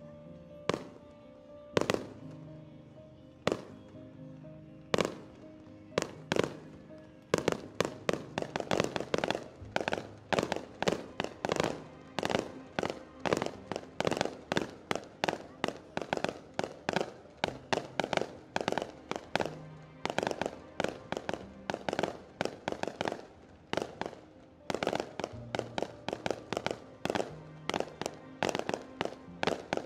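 Aerial fireworks bursting: a few single bangs about a second and a half apart, then from about seven seconds in a rapid barrage of many reports a second. Music plays underneath.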